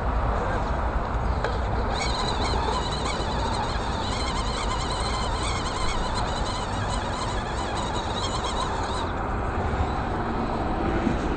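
Axial AX10 RC rock crawler's electric motor and gears whining as it crawls over boulders. A wavering high whine starts about two seconds in and stops near the end, over a steady low background rumble.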